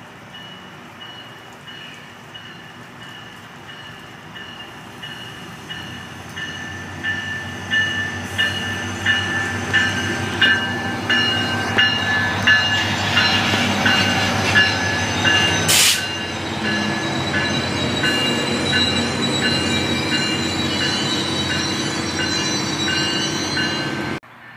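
A MARC diesel-hauled commuter train approaching and passing close by, growing louder as it arrives. Its wheels click rhythmically over the rail joints under a steady high whine. There is one sharp crack about sixteen seconds in, and the sound cuts off suddenly near the end.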